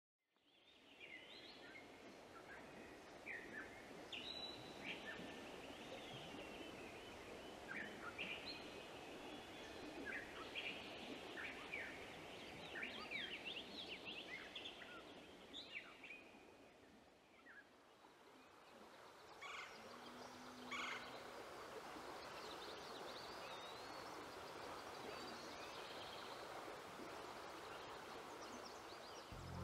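Many small birds chirping and calling over a steady rush of flowing river water, all faint. The calls are busiest in the first half and thin out after that.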